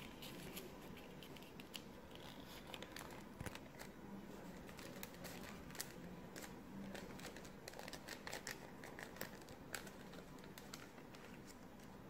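A sheet of paper being folded and creased by hand: faint, irregular crinkles and crackles.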